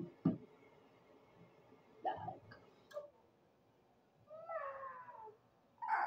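A few short knocks and handling sounds in the first seconds, then a cat meowing: one drawn-out meow falling in pitch about four seconds in, and a short, louder cry near the end.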